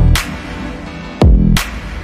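Background music: an electronic beat with heavy hits whose deep bass notes slide sharply down in pitch.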